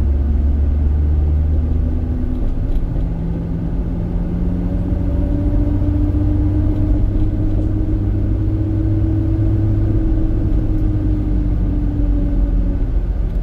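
A motor vehicle on the move: a steady deep rumble of road and wind noise under a humming engine note. The engine note climbs gradually from about four seconds in and drops away near the end.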